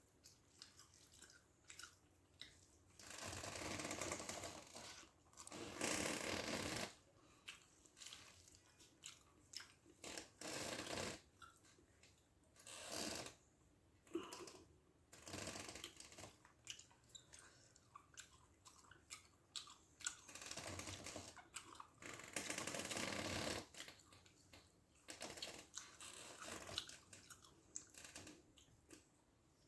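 A person eating rice with fish gravy by hand: chewing and wet smacking mouth sounds in many short clicks, broken by several longer swishing bursts about a second long.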